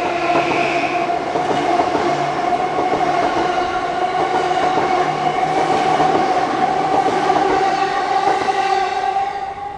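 Yamanote Line E235 series electric train running close past. Its traction motor whine rises slowly in pitch as it gathers speed, over the noise of its wheels on the rails. The sound falls away near the end.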